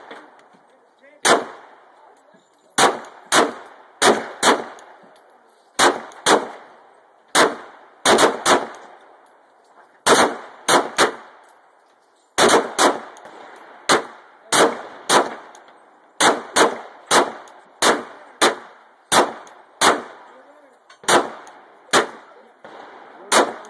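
Glock 17 9mm pistol fired in a long steady string of single shots, a sharp crack about every half second to second and a half, each with a short echo, in groups of two to four with brief pauses between.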